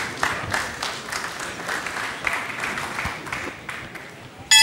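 Arena crowd clapping in unison, about three claps a second; near the end the boxing ring bell is struck once and rings on with a clear pitch, signalling the start of the round.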